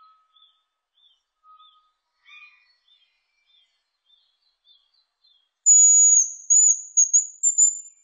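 Hazel grouse giving its thin, very high whistled song, starting about three-quarters of the way in: a held whistle that dips and wavers, then breaks into a few short notes. Faint chirps of other birds come before it.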